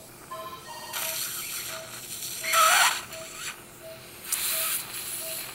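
Operating-room patient monitor beeping steadily with the pulse, a short tone a little faster than once a second. Several bursts of hissing noise come in over it, the loudest about two and a half seconds in.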